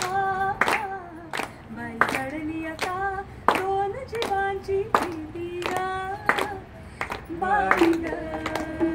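A woman singing long, held, wordless notes that glide between pitches, with hands clapping along in a steady beat of about three claps every two seconds.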